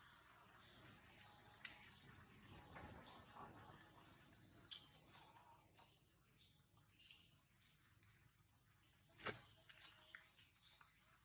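Faint chirping of small birds: many short, high calls one after another, with one sharp click about nine seconds in.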